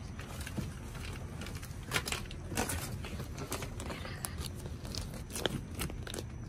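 Rummaging through boxes of packaged goods: plastic packaging crinkling and cardboard rustling. There are irregular short crackles and knocks, the sharpest about two seconds in and again near the end.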